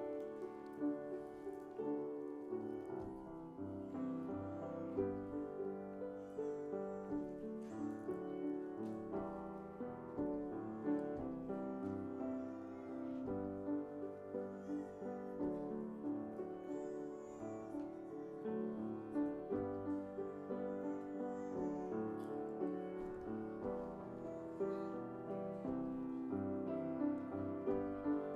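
Piano playing offertory music, with sustained notes and chords throughout.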